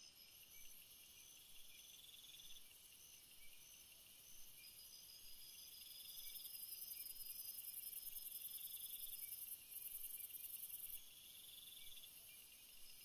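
Forest insects chirping in a faint, high-pitched chorus: quick repeated chirps, a trill that comes back every few seconds, and a shrill pulsing hum that swells in the middle and drops back near the end.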